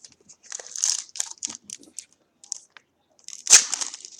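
Crinkling and rustling of trading cards and a foil card-pack wrapper being handled, in short irregular bursts, with a louder crinkle about three and a half seconds in.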